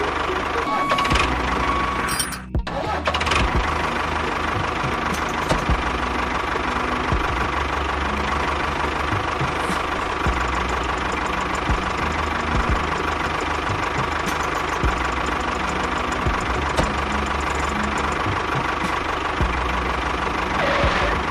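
An engine running steadily, with background music over it. The sound drops out briefly about two and a half seconds in.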